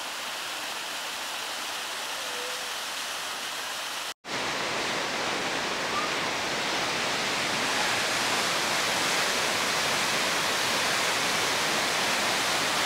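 Steady rush of white water from a snowmelt-swollen mountain creek and waterfall. It cuts out for an instant about four seconds in and comes back louder and fuller.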